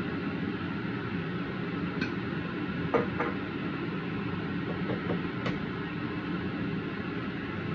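A few sharp glass clinks and taps over a steady background hum. The loudest is a double clink about three seconds in, as a glass oil dispenser is set back down on the counter.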